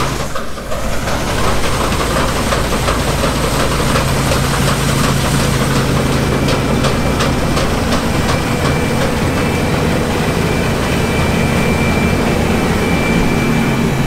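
Large diesel farm machine engine running steadily with a strong low hum, and light clicking or rattling about halfway through.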